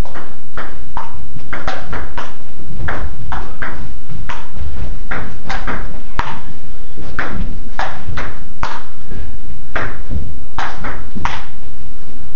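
Table tennis rally: the celluloid ball clicks off rubber paddles and bounces on the tabletop in quick alternation, about two hits a second. The hits stop about a second before the end as the point finishes.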